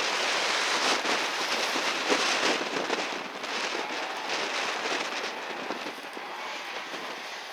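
Strong wind buffeting the microphone, a dense crackling rush that eases somewhat in the second half.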